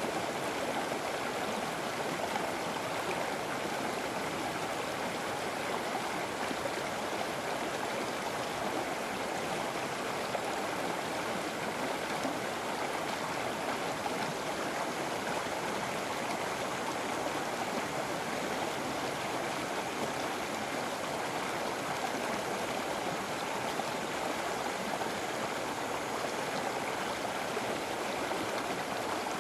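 River water flowing steadily over rocks, an even rushing and gurgling.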